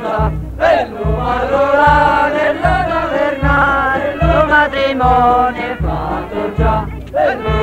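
Southern Italian carnival folk music for the Zeza: a melody line over band accompaniment, with a low bass note on each beat, about four every three seconds.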